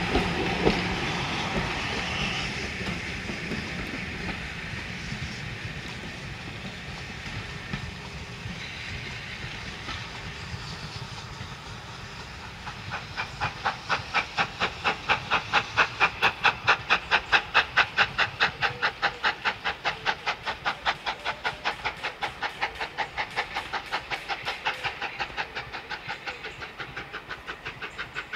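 Steam train: for the first dozen seconds a hissing, rumbling noise that fades away. Then, from about twelve seconds in, a fast, even beat of about four a second, typical of a steam locomotive's exhaust beats, which swells and slowly dies away.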